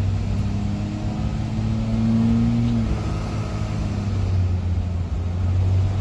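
Isuzu 6BD1-T turbo-diesel inline-six in a dump truck, running straight-piped with the muffler cut off, heard from inside the cab as the truck is driven slowly. A steady low drone whose note changes about halfway through.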